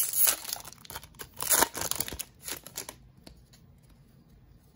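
A Magic: The Gathering booster pack's foil wrapper crinkling and tearing as it is opened by hand, in a run of sharp crackles that stops about three seconds in.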